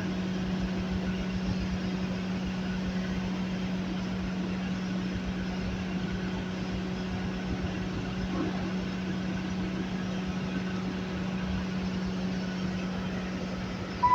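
Skid steer engine running steadily with a constant low hum and no change in speed.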